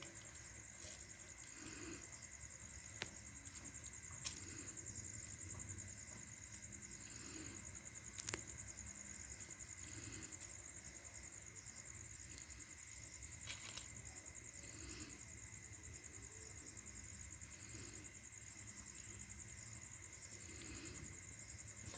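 Faint, steady high-pitched chirring of crickets at night, with a few soft clicks scattered through it.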